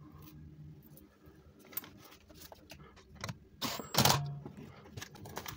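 Light clicks and clinks of metal tools and parts being handled on a workbench, with a louder knock about four seconds in. No drill motor is running.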